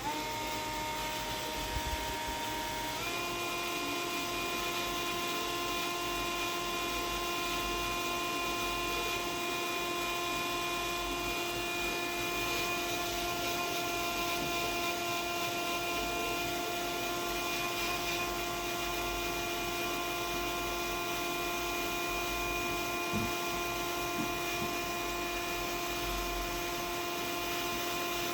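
Electric drill motor running steadily with a constant whine; its pitch shifts about three seconds in, then holds.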